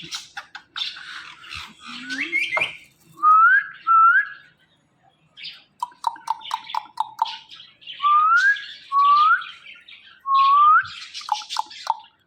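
Pet parrot whistling and chattering: several short rising whistles, a quick run of about seven short even notes around six seconds in, and squawky chatter and clicks in between.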